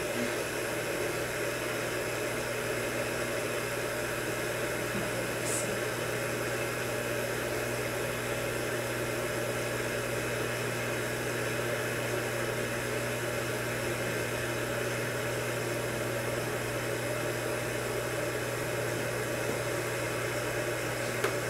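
Steady low hum under an even hiss, unchanging throughout: the constant drone of equipment or ventilation.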